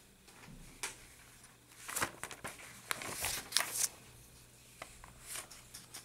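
Paper pages of a bound workbook being flipped and rustled by hand, a series of short crisp page turns with the busiest run in the middle.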